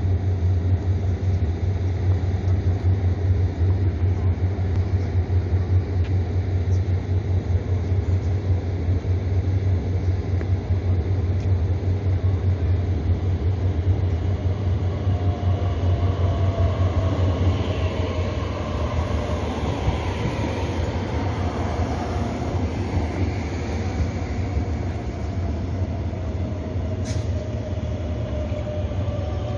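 Korail Nuriro electric multiple unit pulling in along a station platform and slowing to a stop. Its rolling noise builds from about halfway, and several whining tones from its traction motors fall steadily in pitch as it brakes. Under it all is a constant low rumble.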